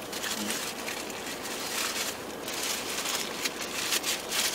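Paper food wrapper rustling and crinkling as it is handled, in several short spells.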